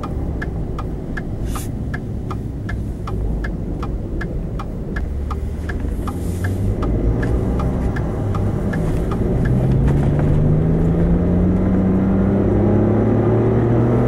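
Inside the cab of a 2013 Ford F-150 with the 3.5-litre twin-turbo EcoBoost V6 under way, a turn signal ticks steadily about two and a half times a second for the first eight seconds or so. Then the engine pulls harder and its note rises steadily as the truck accelerates, running smoothly without misfires on new spark plugs and coil boots.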